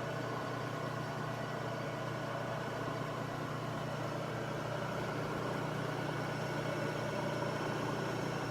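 Milling machine running steadily, its motor and spindle giving an even hum while an end mill takes passes on an aluminum part.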